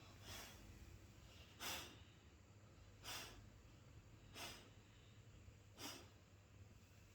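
Sleeping Labrador retriever snoring faintly: five soft, airy breaths, about one every second and a half.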